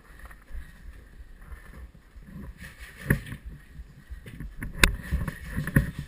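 Wind rumbling on a body-worn microphone, with rustling movement and a few sharp clicks. The loudest click comes about five seconds in.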